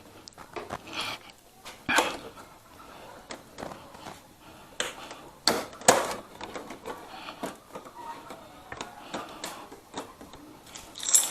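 Scattered clicks, knocks and light rattles of a screwdriver and plastic motorcycle fairing parts being handled as screws and push pins are taken out.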